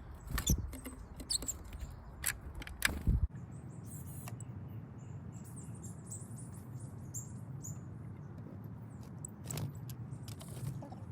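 A run of sharp clicks and knocks for the first three seconds, then small birds chirping in quick high notes over a steady outdoor background, with a few more clicks near the end.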